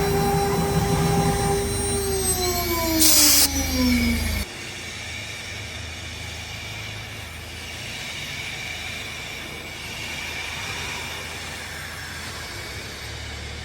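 CNC router spindle whining at a steady pitch, then winding down with a falling whine over a couple of seconds as it is switched off, with a short hiss about three seconds in. At about four and a half seconds the low rumble cuts off abruptly, leaving a quieter steady machine hum.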